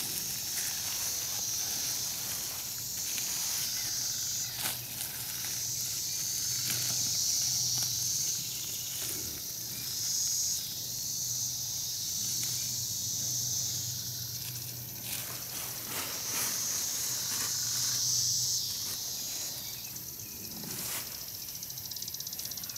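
A high, shrill insect buzz comes and goes in stretches of a few seconds, over crinkling and light clicks of a thin plastic bag being handled and tied around a tree stem.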